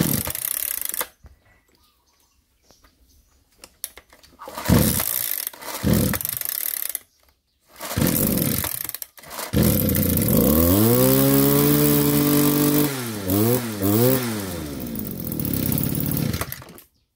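Kioritz (Echo 240) backpack brush cutter's small two-stroke engine being pull-started with its recoil starter. Several separate pulls come before it catches about ten seconds in and runs steadily. It is revved up and down three times in quick succession, runs on, and stops suddenly near the end.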